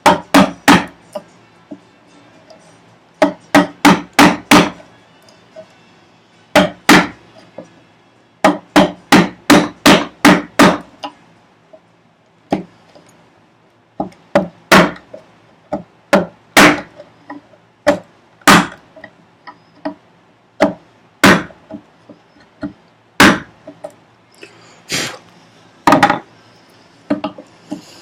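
A chisel driven by mallet blows into wood, cutting out a housing dado. Quick runs of several blows come in the first half, then single, spaced blows about two seconds apart.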